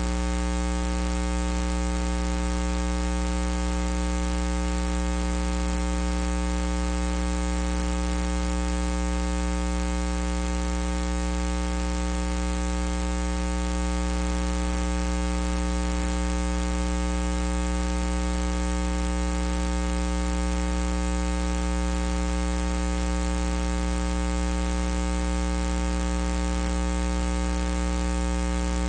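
Steady electrical mains hum and buzz, many evenly spaced overtones over a constant hiss, loud enough to bury any sound from the ring or the crowd.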